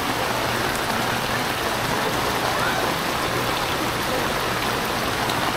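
Steady rain falling on floodwater in a street, an even hiss.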